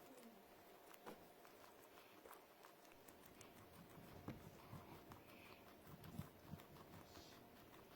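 Faint, irregular crunching clicks of a small pet chewing apple and dandelion. A few louder soft knocks come about halfway through and again later.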